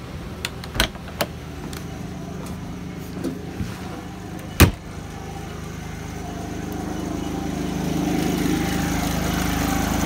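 Clicks of the travel trailer's door latch, then a loud bang of the door shutting a little under halfway through. After that a Predator 3500 inverter generator running steadily under the load of the air conditioner, growing louder.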